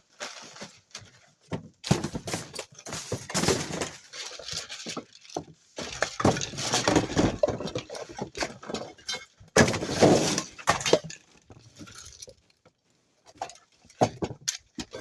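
Scrap metal and wire being handled and pulled about, with irregular rattling, clinking and rustling in several bursts.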